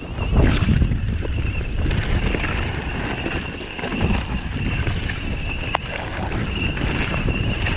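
Propain Tyee mountain bike rolling down a dirt trail: wind rumbling on the camera microphone over the tyres on dirt, with a steady high whine and a few sharp clicks from the bike, the clearest about three-quarters of the way through.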